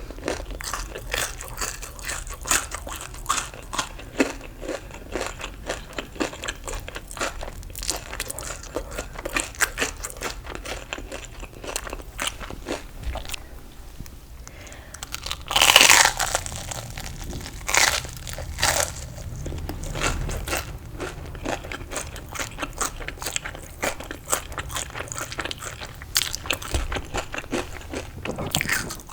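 Close-miked crunching and chewing of crisp fried food: a dense run of sharp crackles from bites and chews. A little past halfway there is one louder, longer sound whose pitch falls.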